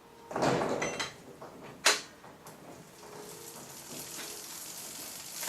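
Pedal wrench working an old clipless pedal loose from a bicycle crank arm: a short scraping rush of metal, then a single sharp clack about two seconds in, followed by quieter steady handling noise.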